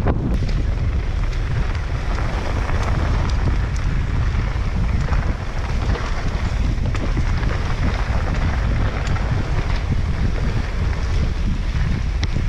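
Wind buffeting the microphone of a mountain bike descending a rough enduro trail, with steady tyre and trail rumble and scattered clicks and rattles from the bike over the ground.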